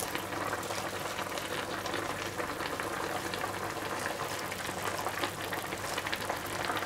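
A heaped pan of sukiyaki simmering on a gas stove, with a steady bubbling crackle from napa cabbage, tofu and greens cooking in a sweet sake-and-sugar broth. A faint low hum runs underneath.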